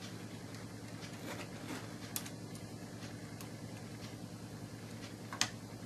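Light clicks of plastic LEGO pieces being handled, a sharp one about two seconds in and the loudest near the end, over a steady low hum.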